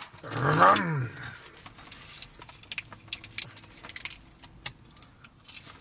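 A short hum that rises and falls in pitch, then the crisp crackling and clicking of a fried chicken tender being torn apart by hand over a plastic sauce cup, with rustling from the paper-lined box.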